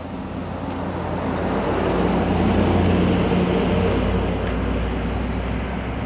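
A motor vehicle driving past: a steady low engine and road hum that swells to its loudest about halfway through, then fades.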